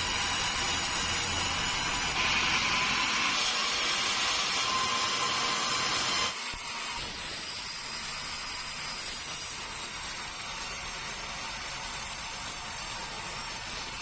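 Sawmill saw blade cutting keruing hardwood, a loud steady whining noise with several high tones. About six seconds in it drops suddenly to a quieter, steady running noise.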